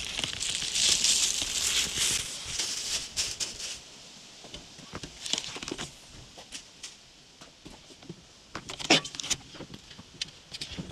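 Cardboard toy box being handled and opened: a rustling, scraping hiss for the first few seconds, then scattered light taps and clicks from the card flaps and plastic packaging.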